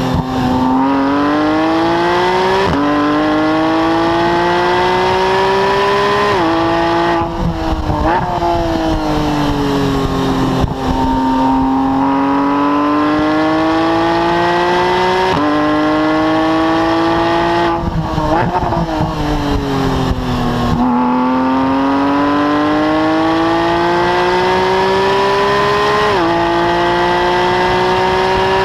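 Porsche 991 GT3's naturally aspirated 3.8-litre flat-six at full throttle, heard close at the exhaust tips. The note climbs steadily through the gears with sharp drops at each quick upshift. Twice it falls away under braking, with short blips on the downshifts, before climbing again.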